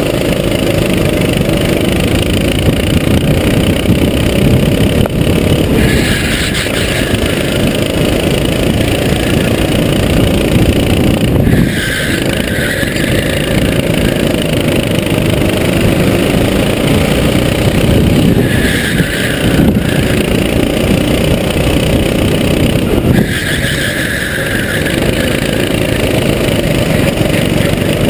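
Rental kart's small single-cylinder four-stroke engine running hard, heard from on board the kart. The engine note eases off briefly a few times, as when slowing for corners.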